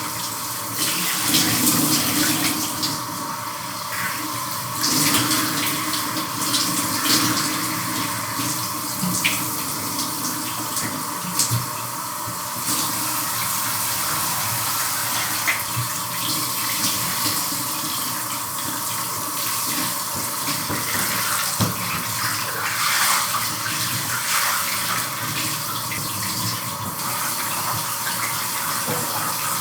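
Shower running: a steady spray of water with uneven splashing, as water falls on a body and the floor of the shower.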